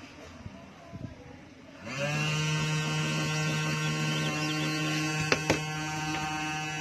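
Hot-air rework gun switched on about two seconds in, its blower running with a steady hum while heating the phone's display to soften the adhesive holding it. A couple of sharp clicks near the end.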